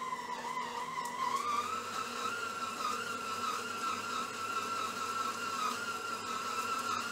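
Electric stand mixer's motor whining steadily as it kneads bread dough; its pitch rises a step about a second and a half in, then holds.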